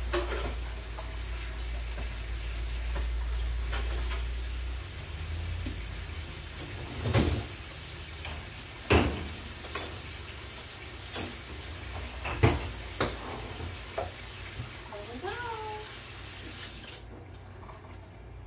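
Dishes and utensils clinking as they are set into dishwasher racks, with several sharp clatters, against the steady hiss of a running kitchen tap that shuts off near the end. A low hum stops about five seconds in.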